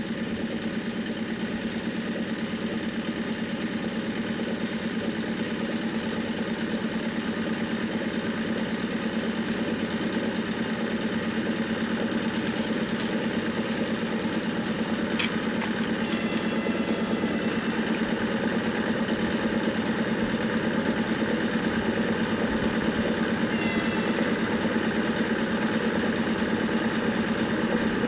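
3ES4K two-section electric freight locomotive approaching with a train of tank cars: a steady low electric hum that grows slowly louder as it nears.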